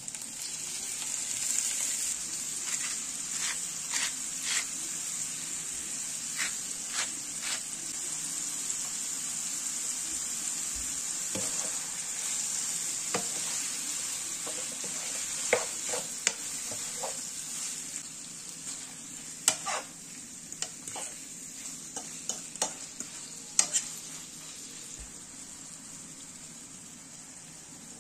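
Food sizzling in hot oil in a pan while being stirred, with scattered clicks and taps of the utensil against the pan, more of them in the second half. The sizzling grows quieter toward the end.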